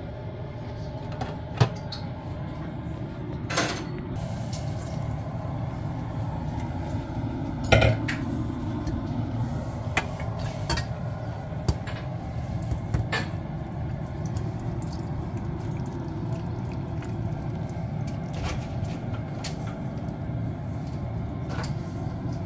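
A metal serving spoon clinks and scrapes against a steel pot, a frying pan and a glass baking dish as cooked meat and rice are served out. There are scattered sharp clinks, the loudest about a third of the way in, over a steady low hum.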